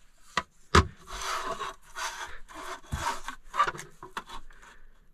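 Paper sheets sliding and rubbing on a countertop as a plastic spirit level is shifted over them, with two sharp knocks within the first second, then a run of rubbing swishes that fades near the end.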